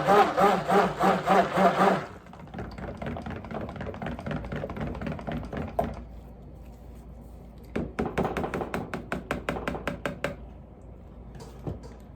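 A stick blender mixing soap batter, pulsing for about two seconds and then stopping, followed by rapid rhythmic stirring strokes in a container, about five or six a second, louder for a couple of seconds near the middle.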